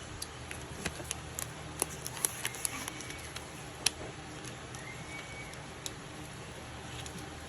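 Scattered light clicks and taps of a phone box and its packaging being handled, over a steady low hum, with the sharpest click just before the middle. Two short, faint, high tones sound about a third and two-thirds of the way through.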